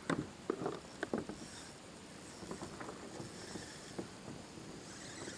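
Sharp knocks and clicks of fishing tackle against a plastic kayak hull while a fish is fought on a bent rod, loudest in the first second and a half. Smaller ticks follow as the fishing reel is cranked to bring the fish in.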